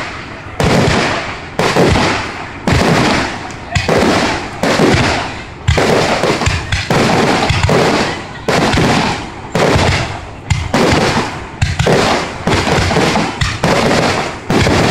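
Fireworks display: a rapid run of loud booms from bursting shells, about one a second and a little quicker near the end, each with a short fading tail.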